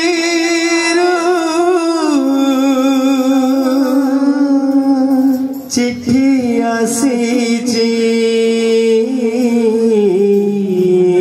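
Male voice singing an Odia kirtan devotional line in long, wavering held notes that step down in pitch, with a few sharp strikes about six to eight seconds in.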